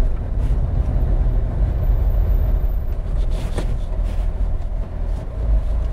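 Low, steady in-cabin rumble of a Toyota Lite-Ace van's 1.5-litre engine and tyres as it rolls slowly over a speed bump, with no hard thump from the suspension. There is a light click a little past halfway.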